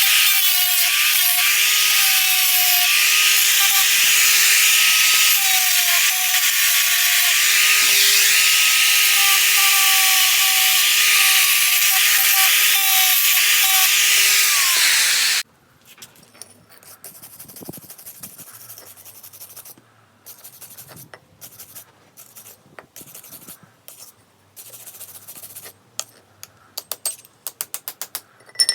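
A small electric power tool runs under load, with a loud grinding or sanding hiss over a steady motor whine whose pitch wavers a little. About halfway through it is switched off and winds down with a falling whine. Faint scraping and light clicks of handling follow.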